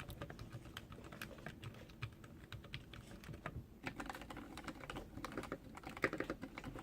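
Typing on a custom mechanical keyboard with lubed Zeal PC linear switches on a brass plate: a quick run of keystroke clicks, growing denser and a little louder about four seconds in.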